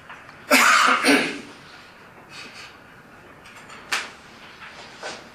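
A person coughing twice in quick succession about half a second in, followed by a short sharp sound a few seconds later.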